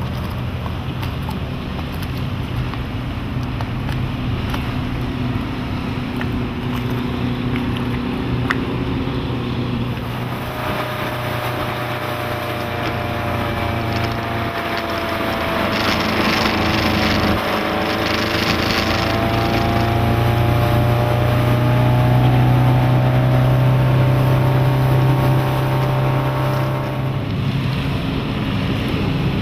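MerCruiser 3.0 L LX four-cylinder sterndrive engine running at speed, pushing the boat across the water, with the rush of water and wind. About halfway through there is a louder rush of water. The engine hum grows louder in the second half.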